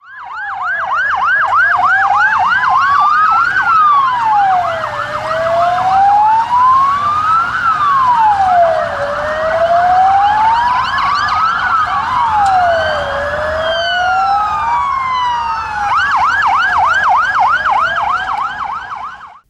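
Emergency vehicle sirens, a fire engine's among them, sounding together. A fast yelp gives way to a slow wail that rises and falls about every four seconds, a second siren sweeps in over it about two-thirds of the way through, and the fast yelp returns near the end.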